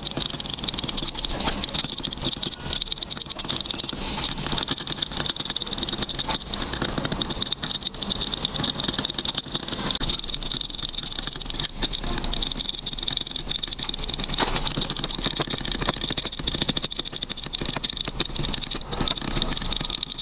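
A thin stick scraping and ticking against the sides of a small plastic cup as two-part epoxy casting resin is stirred by hand, a steady rapid scraping. The resin and hardener, mixed 3:1 and tinted, are being stirred until they blend fully and turn clear.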